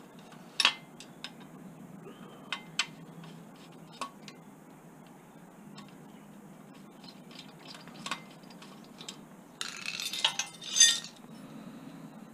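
Metal clinks and taps as a scrap faucet and its parts are handled. Near the end comes a burst of rattling metal clatter, the loudest sound here, as tools or small metal pieces are rummaged through.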